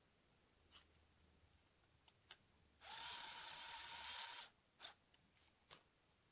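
Small cordless electric screwdriver running for about a second and a half with a steady whine, driving the screw that holds the voltage regulator to its heatsink on a circuit board. A few light clicks of the board being handled come before and after.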